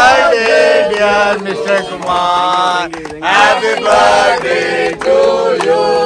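A man singing in a devotional chanting style, as in harikatha, in phrases of long held notes that waver and slide, with short breaths between phrases.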